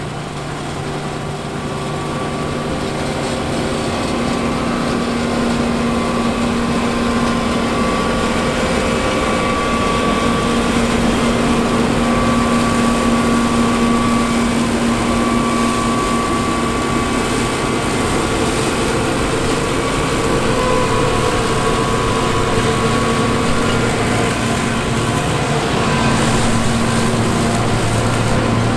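John Deere 9450 combine harvesting wheat, its 6.8-litre PowerTech diesel running steadily under load. The sound grows louder over the first few seconds, then holds level.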